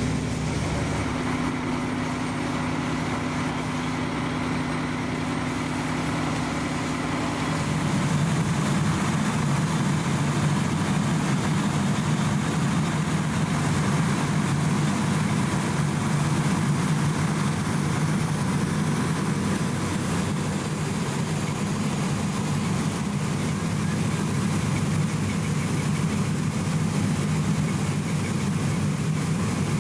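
Fire engine's diesel engine idling, a steady low hum; the engine note changes about eight seconds in, as a second apparatus takes over.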